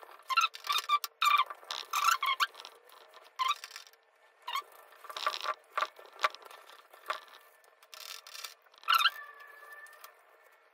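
Stainless steel wire scrubber being rubbed hard against a soldering iron's metal tip and barrel, in quick irregular scratchy strokes, scrubbing off the blackened corrosion loosened by a chemical soak.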